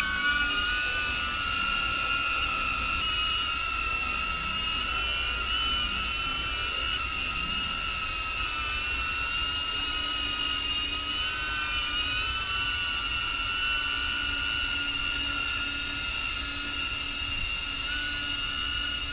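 DJI Avata FPV drone flying, its ducted propellers and motors giving a steady high whine that wavers slightly in pitch.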